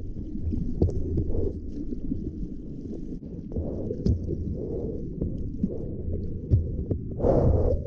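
Muffled rush of ocean water and wind while surfing, with a louder splash about seven seconds in.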